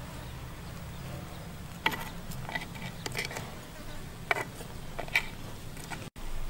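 A metal ladle stirring a clay pot of boiling broth, clinking against the pot several times, over a steady low buzz.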